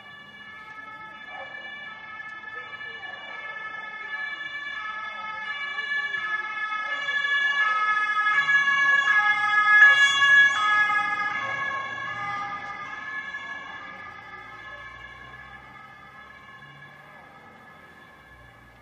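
Ambulance two-tone siren alternating steadily between a high and a low note. It grows louder to a peak about ten seconds in, then fades as the ambulance passes by.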